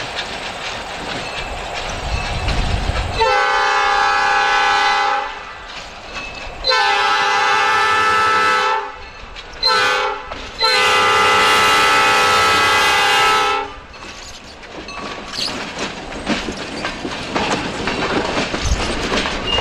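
An EMD GP38 diesel locomotive's air horn sounds the grade-crossing signal of two long blasts, a short one and a final long one. After the horn stops, the covered hopper cars roll through the crossing with a steady clickety-clack of wheels over the rail joints.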